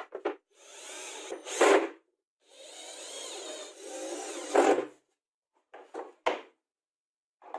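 Cordless drill-driver driving two screws into laminated chipboard, each run lasting a second or two and getting louder at its end. A few short wooden knocks follow near the end as the boards are handled.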